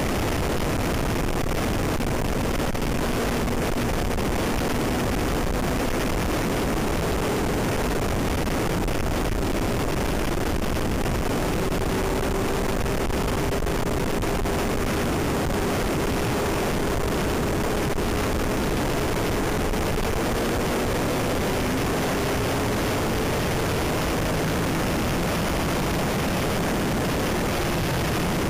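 Motorcycle riding at speed: a steady rush of wind and road noise on the bike-mounted microphone, with the engine's note underneath, its pitch drifting slowly up and down.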